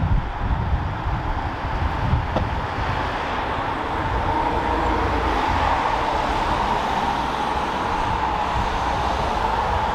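Road traffic going by below: a continuous rushing noise with an uneven low rumble, and a faint steady hum that comes up after a few seconds.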